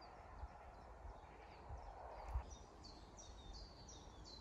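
Faint outdoor ambience with a low wind rumble, and a soft thump just past halfway. From then on a small songbird gives a quick run of short, high chirps, two or three a second.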